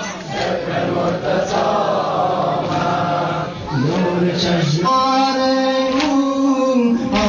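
Male voice chanting a Persian Shi'a mourning lament (noha) for sineh-zani. About five seconds in, the chant settles into long held notes.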